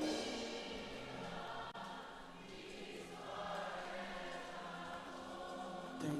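A group of voices softly singing a slow worship song over sustained musical accompaniment.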